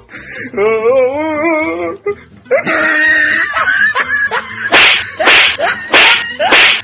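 A loud, wavering, howl-like cry, then a second cry, followed by a run of sharp swishing hit sound effects about two a second as a staged scuffle begins.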